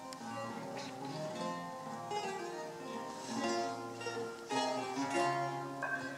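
Eight-course Renaissance lute played solo, plucking a melody over held bass notes, with fuller chords struck several times along the way.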